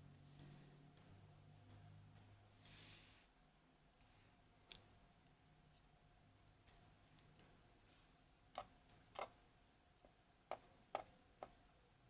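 Faint, scattered small clicks and taps of metal tools working on a Kaba Gemini S lock cylinder, sparse at first, then a quicker run of sharper clicks in the last few seconds.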